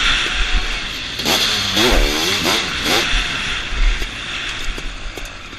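EML Zabel 700cc sidecarcross outfit racing on a dirt track. The engine revs rise and fall several times as the throttle opens and closes, over steady wind noise on the camera and low thuds from the bumps. Near the end the engine eases off.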